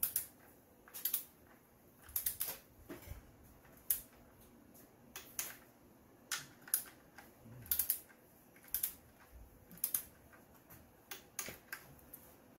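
Ratchet-head torque wrench clicking in short bursts, roughly once a second, as the intake manifold bolts are tightened down in sequence.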